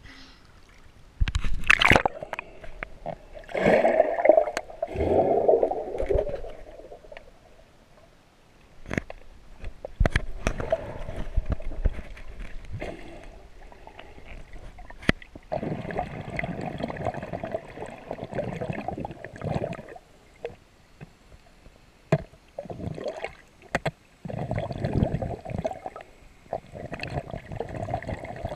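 Sea water splashing about a second and a half in, then muffled underwater gurgling and sloshing heard with the microphone submerged. The gurgling comes and goes in bursts of a few seconds, with a few sharp knocks.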